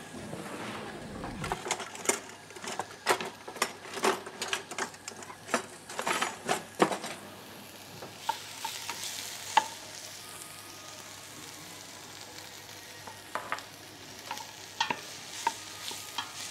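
Onion frying in a stainless steel pot, stirred with a wooden spoon that knocks against the pot many times in the first half. After that it is mostly a steady sizzle with an occasional knock.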